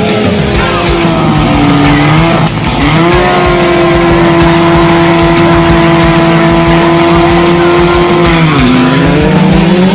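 Drag car engine revving hard, then held at high, steady revs for about five seconds before dropping and climbing again. Music plays underneath.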